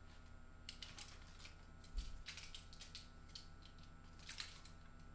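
Light clicks and rattles of a revolver being spun on a finger and handled, with a dull thump about two seconds in and a few more clicks near the end.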